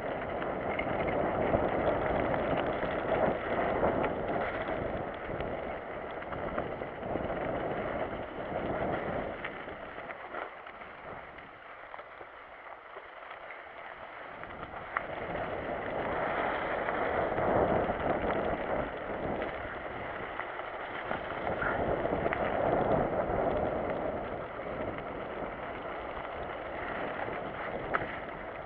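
Mountain bike being ridden over a rough, wet dirt trail: continuous tyre and trail noise with rattling knocks from the bike, mixed with wind on the microphone, rising and falling in level and easing off for a few seconds around the middle.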